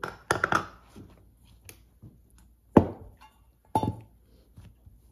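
A silicone pastry mat being flapped out and slapped down on a kitchen counter, then a ball of bagel dough thumped onto it. There is a quick flurry of slaps near the start, then two heavier thuds about a second apart, the first the loudest.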